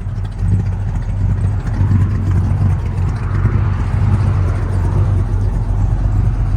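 1968 Ford Fairlane's engine idling steadily with an even low hum.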